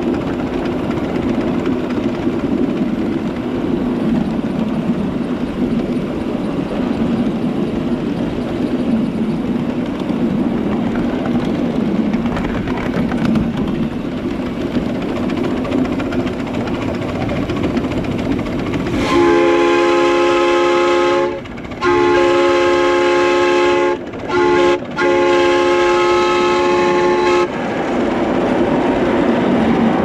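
Live-steam miniature steam locomotive running on its track with a steady rumble and clatter of wheels on rail. About two-thirds of the way in its steam whistle sounds four blasts, long, long, short, long, the grade-crossing signal.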